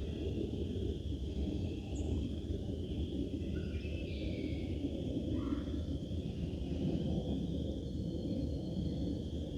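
Outdoor woodland ambience: a steady low rumble with a few short, faint bird chirps scattered through it.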